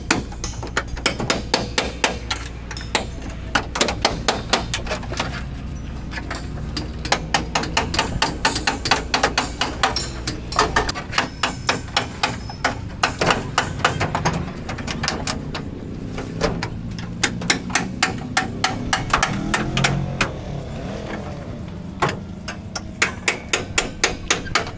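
Small hammer tapping on the sheet-metal door frame and roof edge of a Maruti Omni van, in quick runs of sharp metallic strikes, several a second, with short pauses between runs.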